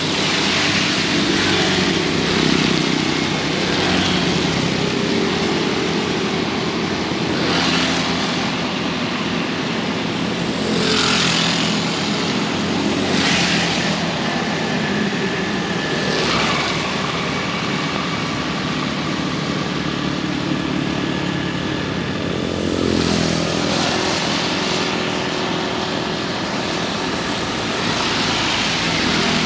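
Heavy rain pouring steadily, with motor vehicles running and several of them swishing past on the wet road.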